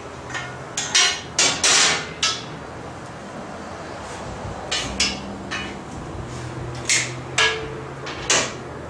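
Metal doors of a large wood-fired oven being pushed shut and fastened: a dozen or so irregular metallic clanks and knocks, with a longer rattling clatter about two seconds in.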